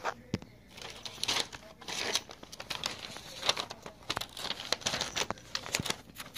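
Loose paper rustling and crinkling in short, irregular bursts as a kitten paws and burrows among the sheets.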